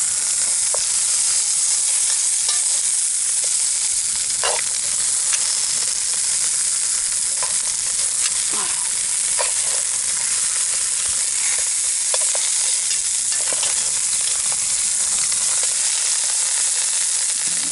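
Lamb shanks sizzling steadily as they brown in a cast-iron Dutch oven over hot coals, with a few scattered clicks and scrapes of metal tongs turning them in the pot.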